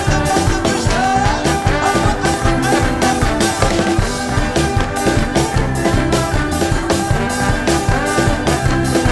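Live band playing an upbeat reggae-style groove, with a drum kit keeping a steady beat under bass, guitars and keyboard.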